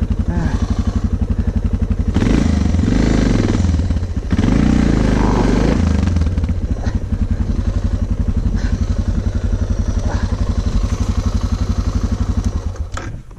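Suzuki DR650SE's single-cylinder engine running at low speed with an even, pulsing beat, louder for a few seconds early on. It cuts out near the end.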